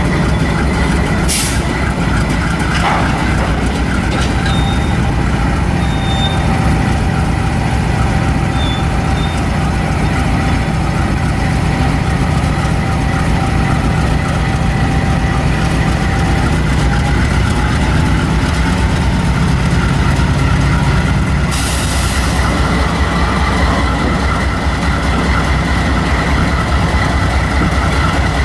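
A BNSF GE C44-9W diesel-electric locomotive's engine rumbling steadily as a freight train of autorack cars rolls slowly through the yard, with thin squealing tones from the wheels. A short air hiss comes about twenty-two seconds in.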